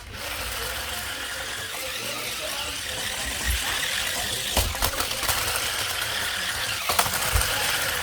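Toy RC stunt car driving on a hard floor: its small electric drive motors and plastic gearboxes run with a steady whirr. Several sharp knocks come about halfway through and near the end as the car bumps and flips.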